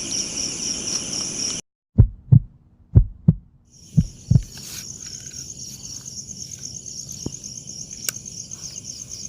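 Night insects trilling steadily, cut off abruptly a little over a second in. Then a heartbeat sound effect gives three deep double thumps (lub-dub), and the insect trilling comes back and carries on.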